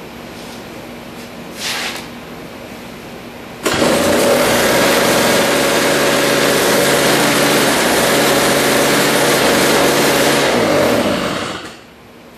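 The Toro CCR Powerlite's Tecumseh two-stroke engine catches suddenly about four seconds in. It runs at a steady fast speed for about seven seconds, then slows and stops near the end. It doesn't seem to reach the governed speed it should have; the owner puts it at 4,000–4,100 rpm, short of about 4,500.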